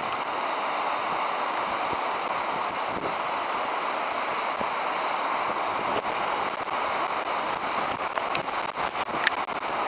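Post-fire debris flow of muddy water and debris rushing steadily down a creek channel, a constant roar-like rush of churning water. A sharp click comes near the end.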